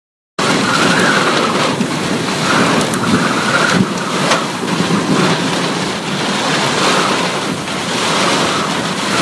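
Heavy rainstorm with strong gusting wind: a loud, continuous rush of rain and wind, with the wind buffeting the microphone. It starts a moment in.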